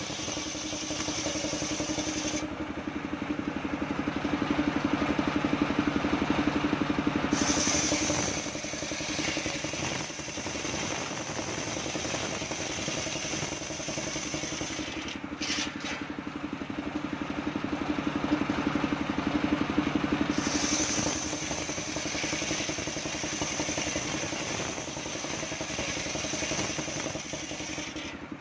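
Homemade engine-driven circular saw bench ripping a coconut palm log lengthwise. The motor runs steadily under the cut, and the sound grows louder during two spells of heavier cutting, about three seconds in and again past the middle.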